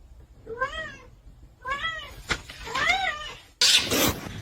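A cat meowing three times, short meows about a second apart, each rising and then falling in pitch. Near the end a sudden louder rush of noise takes over.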